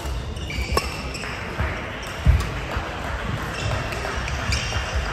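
Badminton rally: sharp cracks of rackets striking the shuttlecock, players' court shoes squeaking on the hall floor, and footfalls, with one heavy thump a little over two seconds in.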